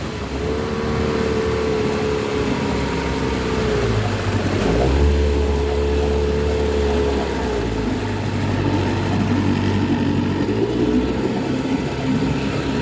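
1978 Chrysler 15 hp two-stroke outboard motor running steadily under way, tuned up and running smoothly. Its pitch dips briefly about four seconds in, then drops lower for a couple of seconds around eight seconds before rising again.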